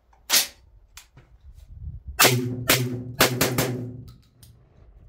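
Tokarev TT12 semi-auto 12-gauge shotgun firing Federal Top Gun 1 1/8 oz shells. A single sharp crack comes shortly in, then about two seconds in a rapid string of about five shots over roughly a second and a half, with a low ringing under them.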